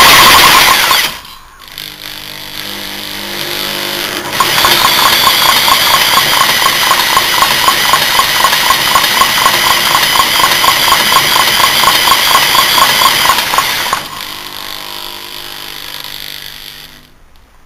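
Old single-cylinder Briggs & Stratton petrol engine running on fuel poured into it. It dies down about a second in, picks up again after about four seconds and runs with an uneven pulse, then cuts out and fades near the end. The engine has a deeply scored cylinder that leaks compression into the crankcase.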